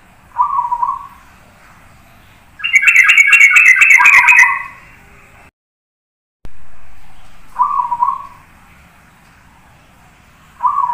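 Zebra dove (perkutut) singing: short coos, then a louder run of rapid repeated notes about three to four seconds in, and more short coos around eight seconds and near the end. The sound cuts out briefly a little past the middle.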